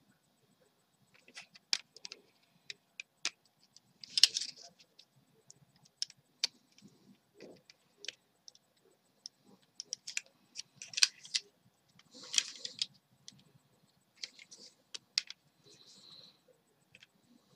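Irregular sharp clicks and short scratchy scrapes of hard plastic being handled: a 1:32 scale plastic-and-metal Batmobile model being pressed and fitted into its plastic packaging. The loudest scrapes come about 4 seconds and about 12 seconds in.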